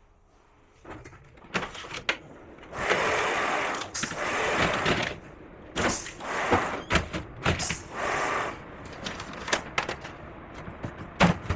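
Plastic panels and parts of a Samsung Gallery door-type air conditioner being handled during disassembly: a string of sharp clicks and knocks with several stretches of rustling or scraping noise.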